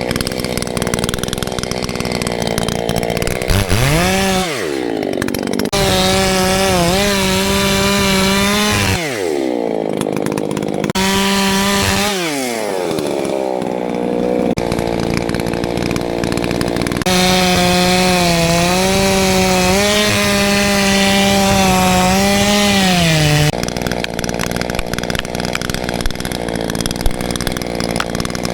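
A battery-powered 56-volt chainsaw bucks a dead tree into rounds. The chain rasps through wood in some stretches; in others the motor runs free with a steady whine. Several times the motor spins up from a stop and winds back down to a stop between cuts.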